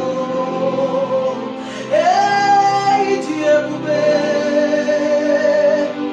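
Gospel worship music: a held, sung vocal line over sustained accompaniment, with the voice moving up to a new long note about two seconds in.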